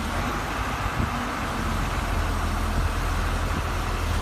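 Diesel engine of a large tandem-axle box truck running steadily as it moves slowly across a yard, a low rumble under a wash of road and engine noise.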